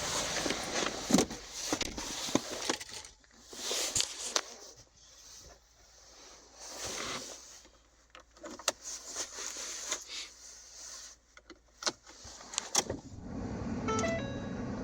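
Keys jingling and scattered clicks and knocks inside a 2015 Ford Fiesta as someone gets in and handles the new remote key. Near the end a steady hum starts up, with short repeated pinging tones over it, as the car is switched on.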